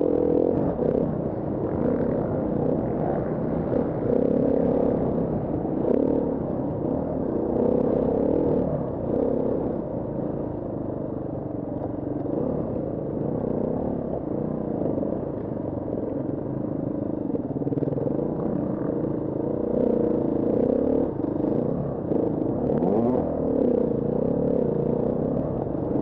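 KTM 350 Six Days enduro bike's single-cylinder four-stroke engine running under load, revs rising and falling with the throttle, with clatter and knocks from the bike over rough ground. The engine eases off in the middle and picks up again near the end.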